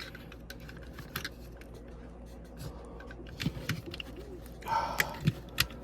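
Scattered light plastic clicks and taps as the small parts of a VW heater control unit are handled and pressed into place, with a brief voice-like sound near the end.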